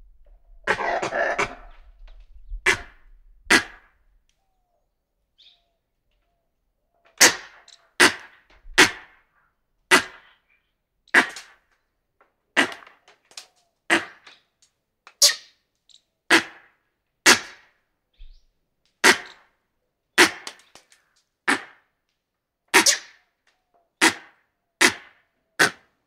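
Hanuman langurs giving alarm barks: sharp, short barks, two early on after a brief burst of rustling, then after a pause a regular run of about twenty, roughly one a second.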